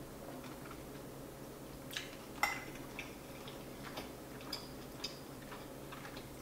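Metal fork clinking and scraping against a ceramic bowl while picking up pasta: a handful of light clicks, the loudest about two and a half seconds in with a brief ring. Soft chewing between the clicks.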